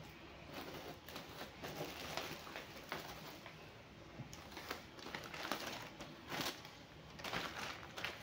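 Plastic bags crinkling and rustling as groceries are taken out of a canvas tote, with irregular light clicks and knocks as items and a woven plastic basket are set down on the counter.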